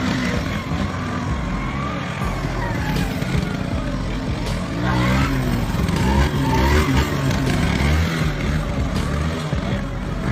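A motor scooter's engine running at low speed, its note rising and falling with the throttle through the middle of the stretch.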